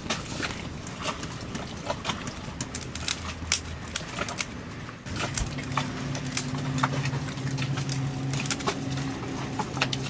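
Irregular sharp clicks and snaps from an African grey parrot's beak picking and tearing at a woven wicker plant pot, with its claws on the hard deck surface, over a steady low hum.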